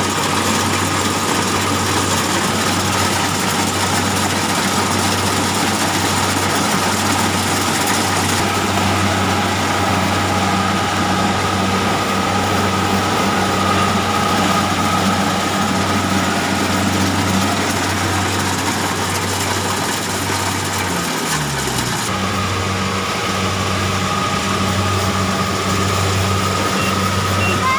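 Engine of rice-harvesting machinery running steadily. Its speed sags briefly about 21 seconds in, then picks back up.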